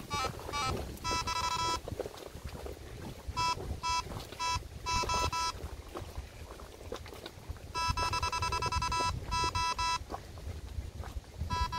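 Electronic bite alarm beeping in a steady high tone, in about nine stop-start runs of bleeps with the longest near the eight-second mark, signalling a run: a pike taking line from the rod. Wind rumbles on the microphone underneath.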